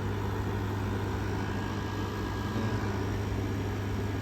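Vissani 6,000 BTU wall air conditioner running: a steady low hum from its GMCC compressor under the even rush of the fan.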